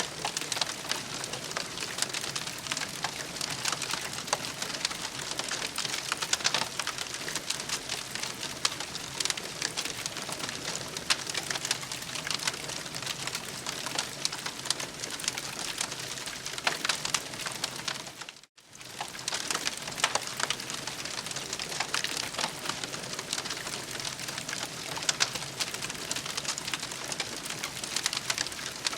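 Campfire crackling and hissing, with many small pops scattered through a steady hiss. The sound drops out for an instant about two-thirds of the way through.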